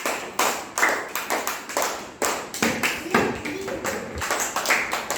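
A group of children clapping their hands together in a steady rhythm, about two to three claps a second. A voice is heard briefly in the middle.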